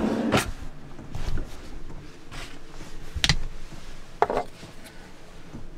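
Rummaging through kitchen drawers: a drawer being handled, cutlery and small objects clattering, and about five separate sharp knocks on wood, the sharpest near the end.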